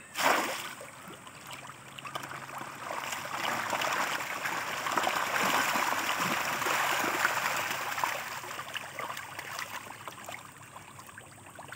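Churning splashing of a crowd of hybrid pangas catfish thrashing at the water surface. It builds over a couple of seconds, is strongest around the middle and then eases off. A sudden loud splash-like burst comes at the very start.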